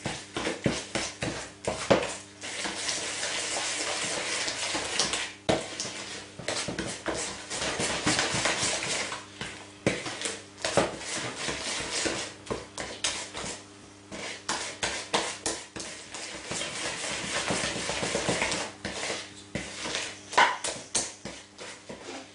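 Spatula stirring egg into creamed butter and sugar by hand in a mixing bowl: a continuous wet scraping, broken by frequent knocks of the spatula against the bowl.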